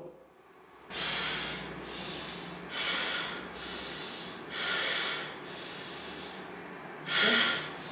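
A woman boxer breathing hard: several sharp, noisy exhales and snorts through the nose, a second or two apart, with no words.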